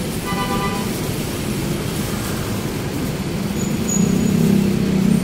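Steady low rumble of a nearby vehicle, growing louder about four seconds in, with a brief high squeal about half a second in.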